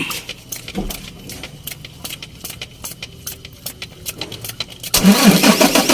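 Isuzu 6WF1 common-rail diesel truck engine being started: faint rapid ticking, then about five seconds in a sudden loud, rhythmic cranking. The engine is hard-starting, and a solenoid valve has been replaced to cure it.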